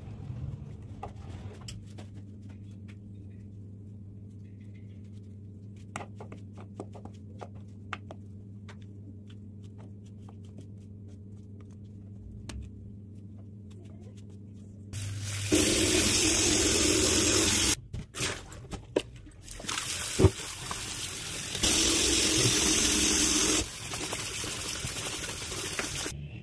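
A knife slicing button mushrooms by hand, a scatter of faint clicks over a low hum. About halfway through, a kitchen tap runs loudly onto the sliced mushrooms in a plastic colander, cutting off and coming back several times.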